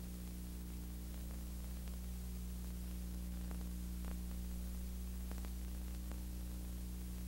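Steady electrical hum with hiss from an old videotape soundtrack playing under a silent title card, with a few faint clicks.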